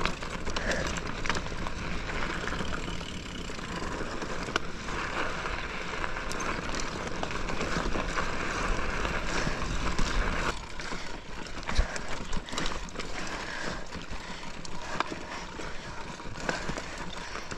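Mountain bike climbing a steep, rocky trail: tyres crunching over rock and gravel, with scattered clicks and rattles from the bike, over a steady rushing noise that eases about ten seconds in.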